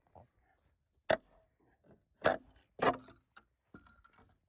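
Sharp knocks of a hand tool striking the wooden fence planks as they are pried off the posts: three loud strikes, about a second in, then two close together past the middle, with a few faint taps between.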